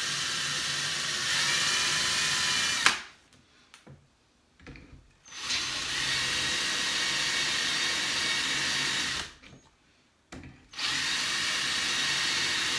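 Cordless 18-volt drill with a 13/64-inch bit boring holes about a quarter inch deep into a wooden board, through the holes of metal mounting brackets. It runs in three steady bursts of three to four seconds each: one stops about three seconds in, the next runs from about five and a half to nine seconds, and the third starts near eleven seconds.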